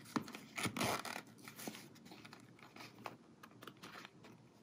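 Louis Vuitton Rosalie monogram-canvas coin purse being handled: its small metal zipper pulled in short strokes, with light rustles and clicks of the canvas and leather, the loudest a second or so in.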